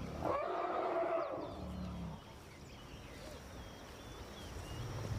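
Elephants calling: a loud trumpet-like call in the first two seconds, then low rumbles, with birds chirping in the background.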